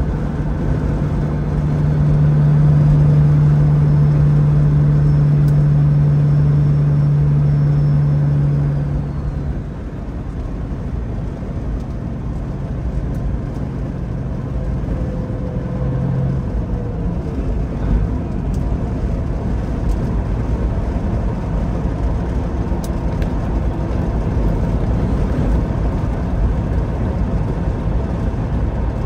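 Heavy diesel engine running under steady load: a loud, even drone that drops off about ten seconds in, leaving a lower steady rumble.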